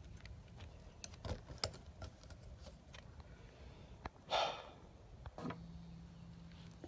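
Scattered light clicks and handling noise from a phone being moved and set up as a camera, with a short rustle about four seconds in. A faint low steady hum starts near the end.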